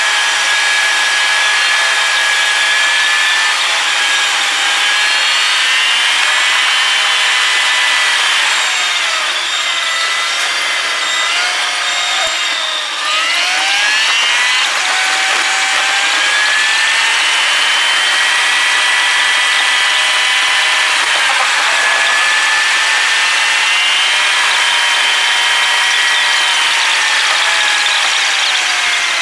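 Car engine and drivetrain whining, heard from inside the cabin while driving at speed, the pitch climbing and holding as the car accelerates and cruises. About 13 seconds in, the whine drops sharply and climbs straight back up.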